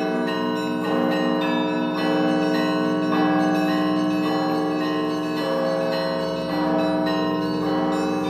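Russian Orthodox monastery bells ringing together: several bells of different pitches are struck by their clappers about once a second, their tones overlapping and sustaining, over a low bell tone that throbs steadily.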